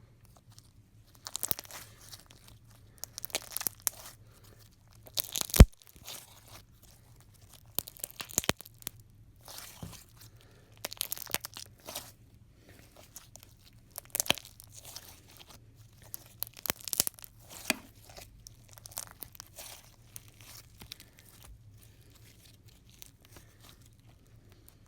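Homemade clear-glue slime being squished and stretched by hand, giving short clusters of sticky clicks and pops every second or two, with one sharp pop about five and a half seconds in.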